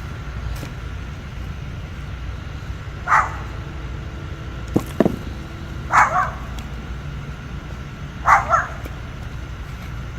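A dog barking: a bark about three seconds in, then a double bark about six seconds in and another near the end, over a steady low rumble. Two short knocks come between the first and second barks.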